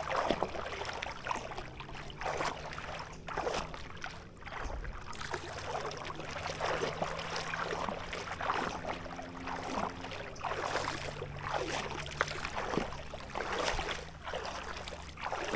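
Shallow water sloshing and splashing in repeated swishes, roughly one a second, as a person wades through it.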